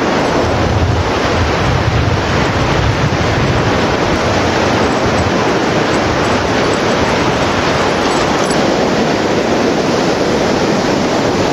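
Ocean surf breaking on a beach, a steady loud rush, mixed with strong wind blowing across the microphone that rumbles low in gusts during the first few seconds.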